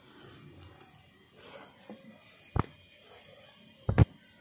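Hands handling parts on a scooter engine: quiet rustling, one sharp knock about two and a half seconds in, and a louder double knock about a second later.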